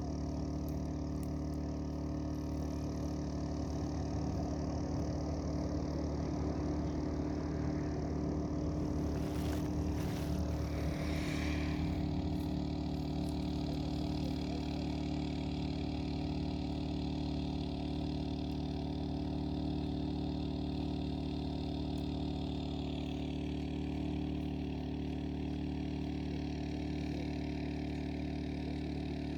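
An engine running steadily, a constant hum made of several steady tones, briefly disturbed about ten seconds in.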